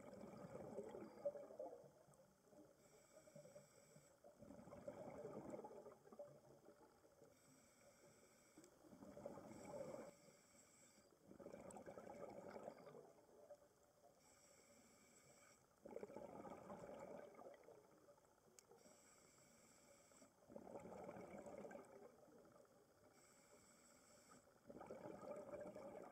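Scuba diver breathing through a regulator underwater: a bubbling rush of exhaled air about every four to five seconds, with a thin hiss of inhalation between the exhalations.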